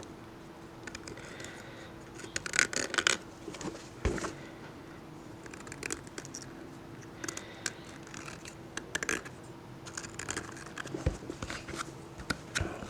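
Hand scraping and trimming of a plastic RC wheel's hub hole with a hobby knife, in short scratchy strokes mixed with small clicks and knocks as the wheel is handled.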